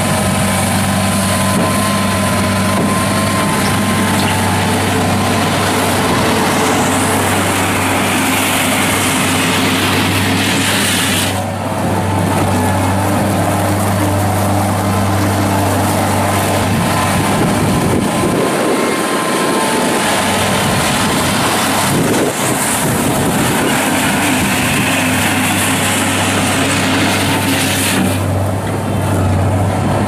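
The 61-horsepower four-cylinder turbo diesel of a 2008 John Deere 317 skid steer loader, running steadily as the machine is driven around.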